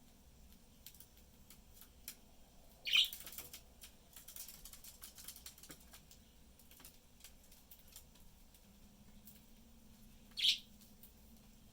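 Budgerigars in a cage: two short, loud chirps, each falling in pitch, one about three seconds in and one near the end, amid scattered small clicks and a spell of rustling just after the first chirp.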